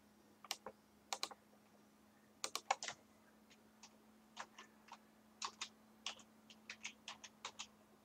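Computer keyboard being typed on: a scattered run of short, light key clicks, with a couple of mouse clicks near the start.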